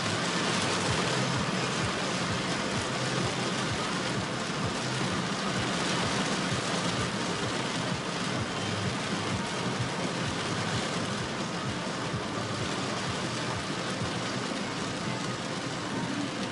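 Torrential rain beating on a car's roof and windscreen, a steady dense hiss heard from inside the car, with the car's engine and tyres underneath.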